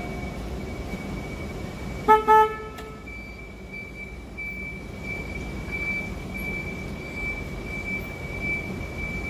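Nichiyu electric forklift sounding its horn in two short beeps about two seconds in, over a steady low rumble and a thin high steady whine as the truck drives.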